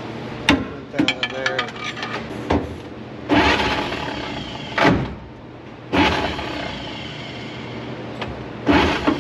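Starter cranking a 1953 Chevrolet truck's straight-six engine, valve cover off, in short spells. It spins over very fast, the sign of low compression, which the mechanics suspect comes from a bad cylinder, worn rings or valves held open by pumped-up lifters.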